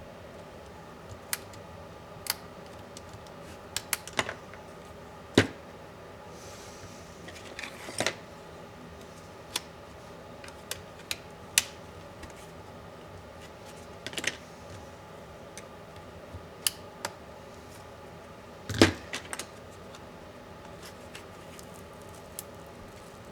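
Scattered sharp clicks and light taps of plastic and metal laptop parts and small tools being handled during a laptop teardown, with two louder knocks about five seconds in and near the end.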